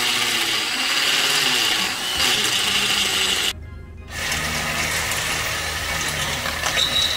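Ryobi cordless drill boring out a steel bumper-mount hole in a Jeep frame to enlarge it to 9/16 inch. It whines under load in two runs, with a short stop about three and a half seconds in.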